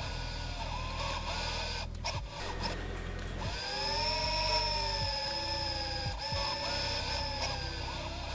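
Whirring of small electric motors, like robotic-arm servos, gliding up and down in pitch, with a few sharp clicks and knocks: mechanical sound effects for an animated assembly machine.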